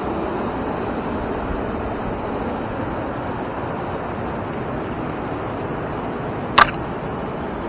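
Steady rush of a river running high after spring rain, with a single sharp click near the end.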